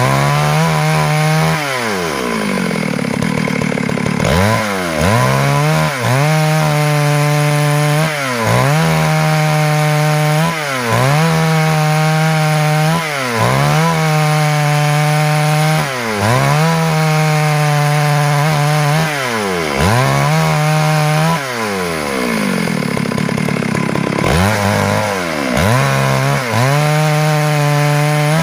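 Stihl MS 382 two-stroke chainsaw running at high revs while sawing wood. The engine pitch dips and climbs back every two to three seconds, and twice, near the start and about two-thirds of the way in, it drops lower for a second or two before revving up again.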